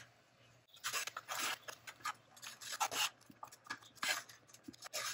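Metal spoon stirring milk powder into hot milk and ghee in a cooking pan, scraping against the pan in quick, irregular strokes that start about a second in.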